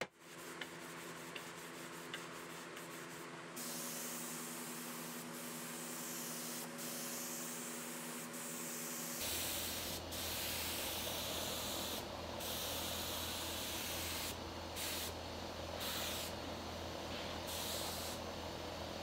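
Spray gun hissing as it sprays finish onto a wooden bench. A steady hum runs under the hiss for the first half, and later the hiss stops and starts several times as the trigger is released and squeezed again.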